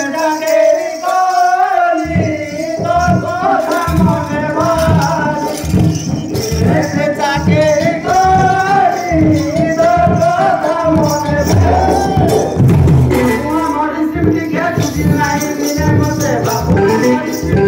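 Danda jatra folk song: a voice sings a wavering, ornamented melody over steady drum beats and jingling hand percussion.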